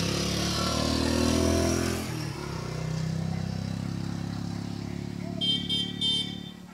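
Motorcycle engine passing, loudest about a second and a half in, followed by a steady engine hum from another vehicle. Near the end a quick series of short, high-pitched beeps sounds.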